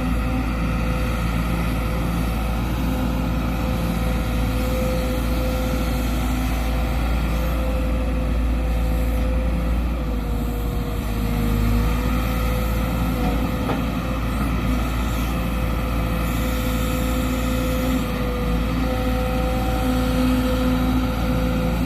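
Sumitomo SH210 hydraulic excavator's diesel engine running steadily under working load while digging, with a steady tone over the rumble that dips slightly in pitch about halfway through.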